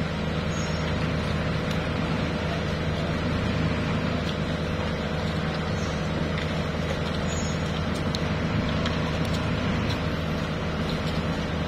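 Heavy diesel engines idling with a steady low drone.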